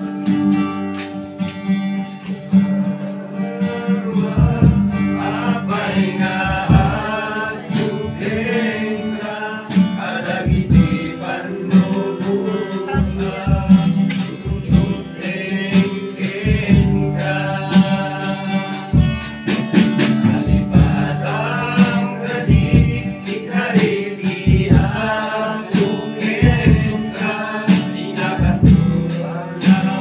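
A group of voices singing a song, accompanied by a strummed acoustic guitar keeping a steady rhythm.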